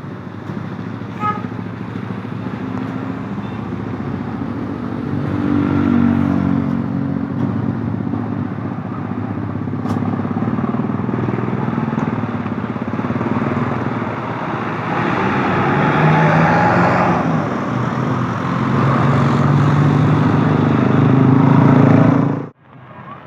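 Motor vehicles running close by on a road: a steady, loud mix of engine and road noise that swells a few times, then cuts off suddenly near the end.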